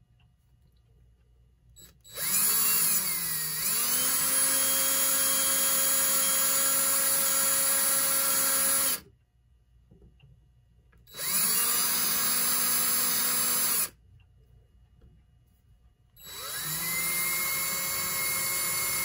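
Electric drill boring a small hole through the metal housing of a Telechron clock rotor. It runs in three bursts, spinning up quickly at the start of each, with the third at a lower pitch.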